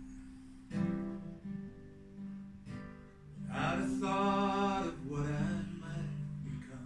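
Unamplified acoustic guitar playing an introduction, plucked and strummed chords ringing in a small room, swelling to its loudest a little past the middle.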